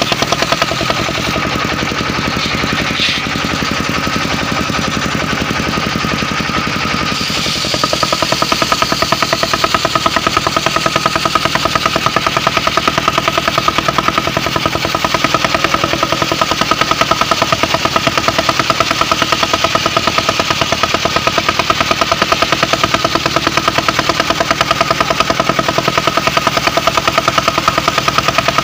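Engine-driven circular sawmill running steadily with a fast, even knock; about seven seconds in it gets louder and harsher, with more high-pitched sound.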